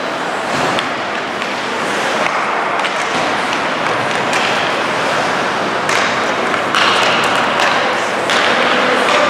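Ice hockey play in a rink: a steady scraping hiss of skates on ice, broken by repeated sharp clacks and thuds of sticks, puck and boards.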